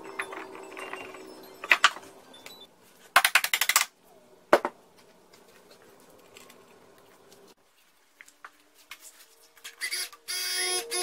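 Metal hand tools clicking and clattering against an outboard's trim unit and clamp bracket as it is bolted in: scattered clicks, a quick run of rapid clicks about three seconds in, and a short squeak near the end.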